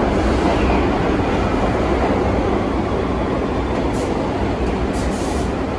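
New York City subway train pulling into the station alongside the platform: a steady, loud rumble of wheels on the rails, with a few short high hisses near the end.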